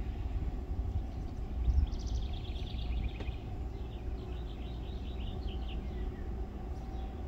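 A songbird singing a fast run of quick, repeated high notes for a few seconds, over a steady low rumble.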